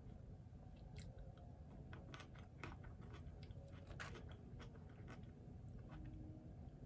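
A person chewing food, faint and close: irregular small clicks and crunches from the mouth, busiest midway.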